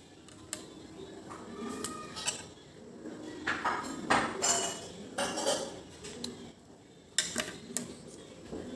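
Small Tambola number coins clicking and clattering as they are handled and set down. There are a few sharp taps, and a busier stretch of rattling in the middle.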